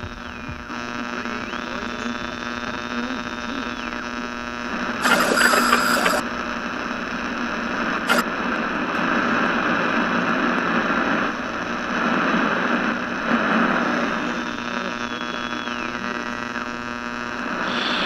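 Electronic hum and radio static, with whistling tones that slide down in pitch. A loud burst of static lasts about a second, some five seconds in, and a sharp click comes near eight seconds.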